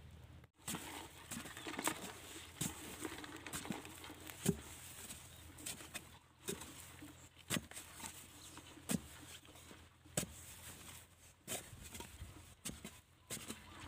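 A digging tool striking and breaking up dry, crumbly paddy soil while digging out a field crab burrow, in uneven short knocks about once a second.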